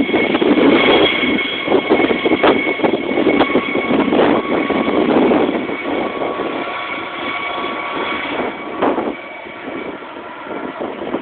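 Air ambulance helicopter lifting off close by: loud rotor noise with a steady high turbine whine over it, dying away over the last few seconds as the helicopter climbs and flies off.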